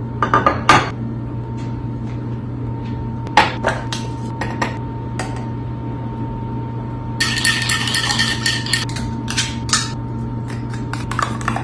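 Dishes and cutlery clinking and clattering in irregular knocks, with a short stretch of continuous scraping and rattling about seven seconds in, over a steady low hum.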